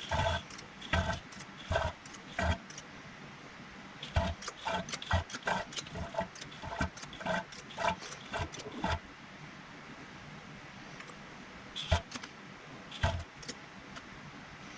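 Hand-operated fluid pump being worked to fill a rear axle with gear oil, a short sound at each stroke, running at about two strokes a second in the middle with a few single strokes before and after. The pump is drawing air in along with the oil.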